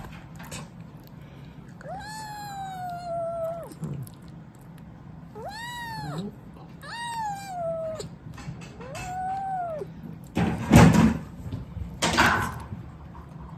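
Young black-and-white kitten meowing four times while being held and hand-fed: one long meow, then three shorter ones. Two short, loud noises come near the end.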